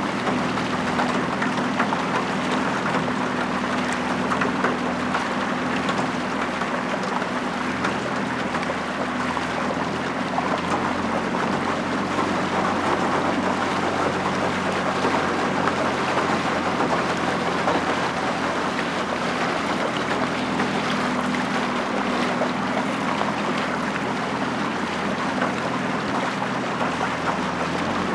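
Motorboat engine running at a steady speed, with water rushing past the hull and wind noise on top.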